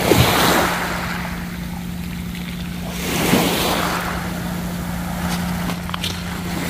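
Small sea waves washing up onto a shell-and-pebble beach, two swells about three seconds apart, over a steady low hum.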